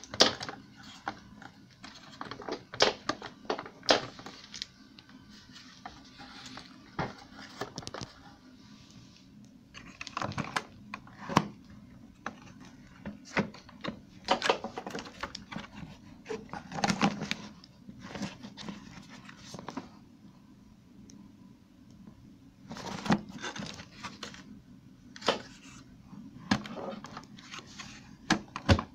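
Hands handling an Electrolux Royal 780 vacuum cleaner with its motor off: irregular clicks, knocks and rustles of its parts being opened and moved, as its dust bag and filter are checked.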